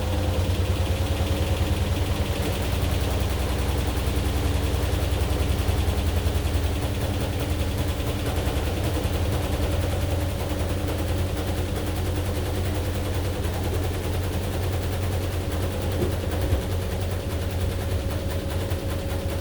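AQUA AQW-DX12M drum-type washing machine running: a low, fast-fluttering rumble and rattle under a steady motor whine that rises slightly in the first few seconds, then holds.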